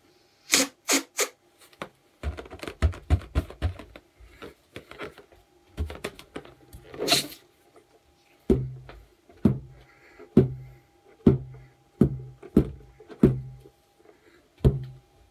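Sharp crackling handling noises, then a steady run of about eight hollow slapping thuds, one roughly every second, each with a low boom that dies away quickly.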